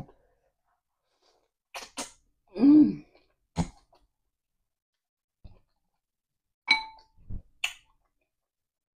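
Mukbang eating noises: scattered sharp clicks and taps from mouth, dishes and utensils, one with a brief ringing tone about seven seconds in. About three seconds in comes a short sound from the eater's voice, the loudest thing here.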